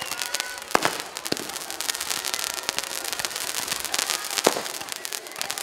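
Toy fireworks shooting spark trails, crackling with dense rapid pops. Two louder bangs stand out, one just under a second in and another about four and a half seconds in.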